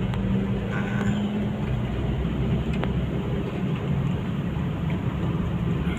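Steady low hum of a moving car heard from inside the cabin: engine and road noise while driving, with a faint click about three seconds in.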